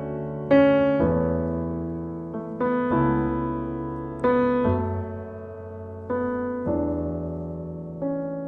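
Slow solo piano music: sustained chords struck every second or two, each left to ring and fade before the next.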